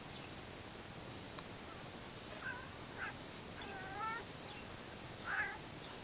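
A cat giving four short meows. The longest, wavering one comes near the middle and the loudest near the end.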